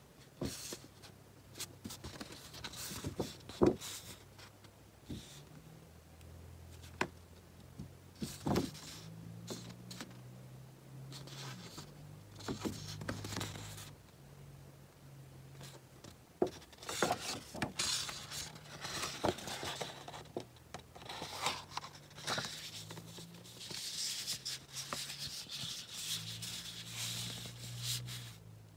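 Sheets of thick patterned scrapbook cardstock handled close to the microphone: crisp rustling, sliding and flexing. There are a few sharp snaps of the card, the loudest about three and a half seconds in, and a longer spell of steady rustling in the second half.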